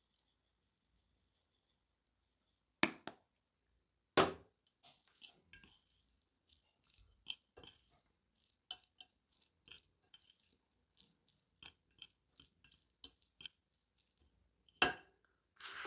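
Two sharp knocks about three and four seconds in, then a fork mixing flaked tuna in a glass bowl: many light clinks and scrapes of the metal tines against the glass, with another sharp knock near the end.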